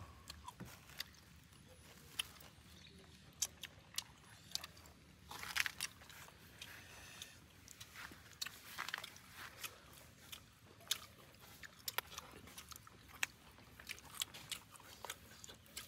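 Faint chewing and biting of smoked pork, with scattered soft crunches and mouth clicks.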